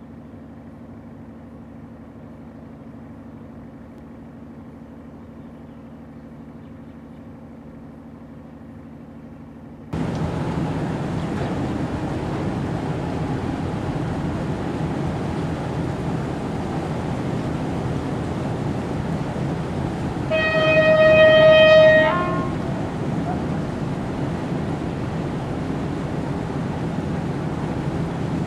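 A train horn sounds once, a single held note lasting about a second and a half, over a steady rushing noise. Before that there is a quieter low steady hum, which switches abruptly to the rushing noise about a third of the way in.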